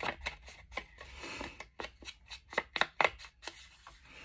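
Rapid, regular rubbing strokes, about four or five a second, of an ink applicator working Vintage Photo Distress ink around the edges of a manila paper tag. The strokes stop shortly before the end.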